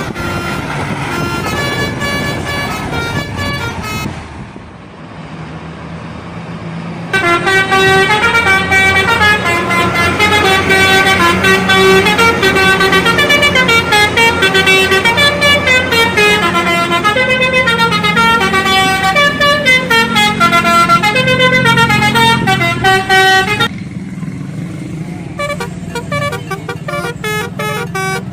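Indonesian bus telolet horn, a multi-note air horn, playing a long, fast-stepping melody of pitched notes that starts about a quarter of the way in and cuts off abruptly near the end. Bus engine and road noise run underneath and are heard alone before and after the tune.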